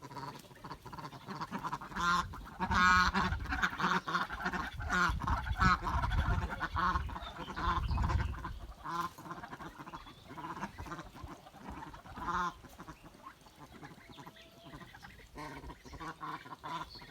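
Farmyard ducks and geese calling, a string of repeated nasal honks and quacks, with a low rumble from about five to eight seconds in.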